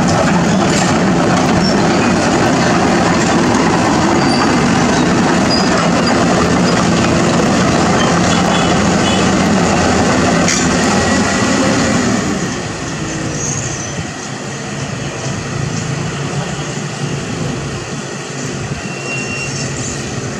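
Caterpillar 320D hydraulic excavator working: its diesel engine runs loud and steady under load, then drops noticeably quieter about twelve seconds in.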